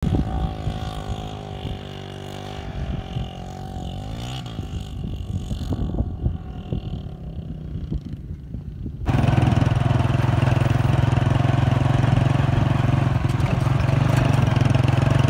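Motorcycle engine running, its pitch sliding around four seconds in. About nine seconds in it changes abruptly to a louder, steady engine note with wind noise, as heard from aboard the moving bike.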